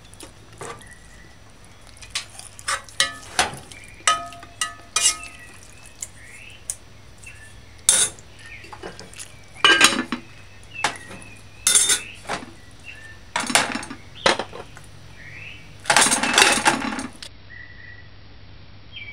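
Clinks and scrapes of metal cutlery and cookware: a fork against a plate and knocks on a metal pot, a dozen or so sharp clinks, some ringing briefly. A longer scraping, scrubbing sound comes about sixteen seconds in.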